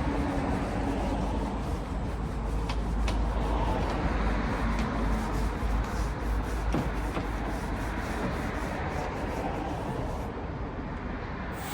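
Steady scrubbing against a hard surface, with scattered light clicks; the sound thins out near the end.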